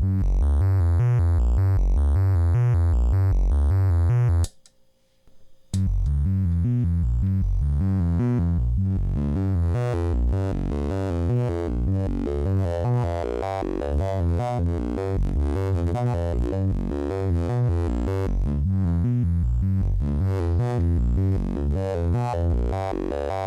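Homemade CPU-less wavetable oscillator, built around a flash memory chip, voltage-controlled oscillator and DAC, holding one low note while its tone keeps shifting through the wavetable's waveforms. About four and a half seconds in, it cuts out for about a second, then carries on.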